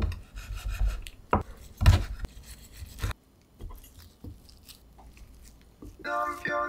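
Kitchen knife slicing through a roll of seaweed-wrapped gimbap on a wooden cutting board: noisy cutting strokes with three sharp knocks of the blade on the board. Then a few faint taps as the slices are handled, and music starts near the end.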